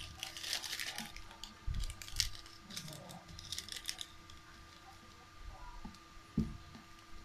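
Plastic and foil instant-noodle packets and seasoning sachets rustling and crinkling as they are handled, busiest in the first few seconds. A single soft knock comes near the end.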